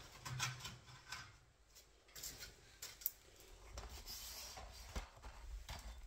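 Faint handling noise: scattered light taps, clicks and rustles, with a sharper click about three seconds in and a dull knock about five seconds in.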